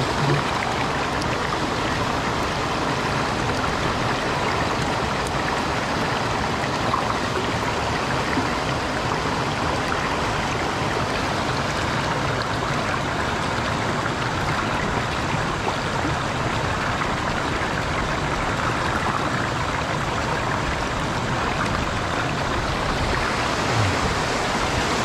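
Mountain stream rushing and splashing steadily over rocks close by.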